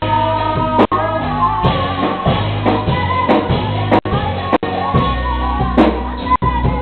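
Church worship music: singing over a band with a steady bass. The sound cuts out for an instant a few times.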